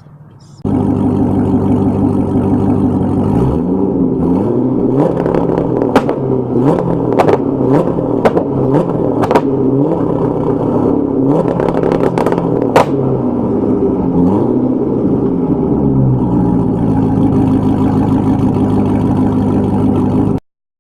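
Corvette Z06's 7.0-litre LS7 V8 idling, then revved in a series of quick blips, with sharp pops from the exhaust as a two-step rev limiter cuts the ignition at the set RPM. It settles back to a steady idle near the end and cuts off abruptly.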